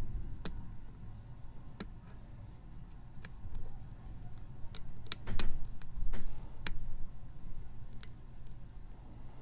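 Lock pick clicking against the pins inside a pin-tumbler challenge lock as it is picked under tension: a scatter of irregular sharp metallic clicks, a few louder ones past the middle.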